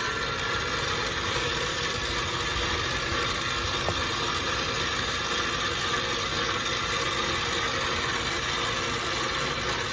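Electric lift motor of a battery-powered dump dolly (garbage-can lift) running steadily as it moves a loaded trash can, with a steady mechanical whine and a faint click about four seconds in.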